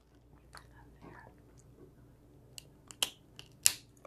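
Snow crab shells being cracked and snapped apart by hand: a few sharp cracks and crackles, one small one about half a second in and a cluster in the last second and a half, the loudest near the end.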